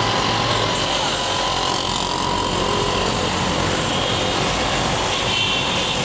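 Street traffic of motorcycles and auto-rickshaws, their small engines running with a steady, even drone.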